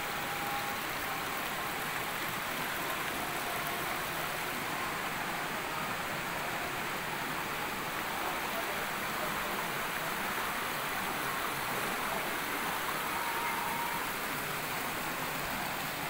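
Steady, even rush of water from a rocky mountain stream and waterfall.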